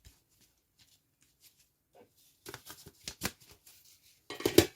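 Parts of a plastic pet water fountain being handled: scattered light clicks and rattles, then a short burst of louder clattering near the end.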